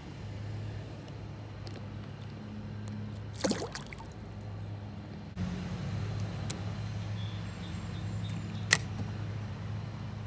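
Water splashing and trickling as a bluegill is let go over the side of a canoe, with a short splash about three and a half seconds in and one sharp click near the end, over a steady low hum.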